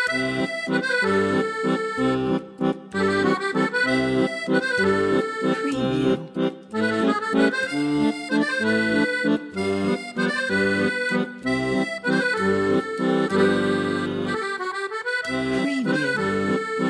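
Instrumental background music: held melody notes over a regular bass beat.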